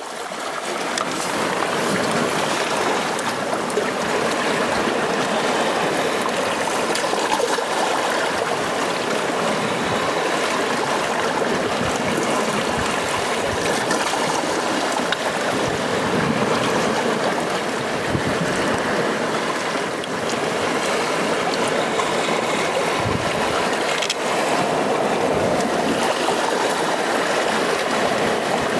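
Sea waves washing on the shore in a continuous, steady wash of water, fading in during the first second.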